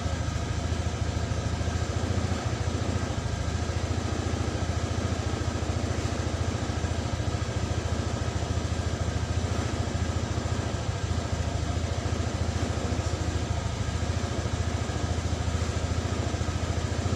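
Motor scooter's engine idling steadily, a low, even hum that holds the same pitch and level throughout with no revving.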